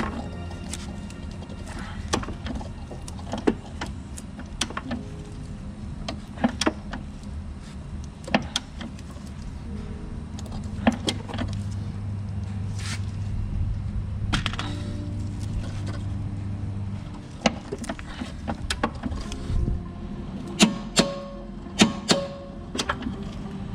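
Background music with held tones and, near the end, a steady beat, over scattered clicks and knocks of hand-tool work on a car's rear suspension.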